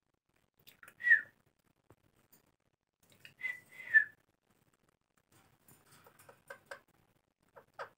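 Rose-ringed (Indian ringneck) parakeet giving short, shrill whistled calls: one about a second in, then two in quick succession around four seconds, followed by several fainter short sounds near the end.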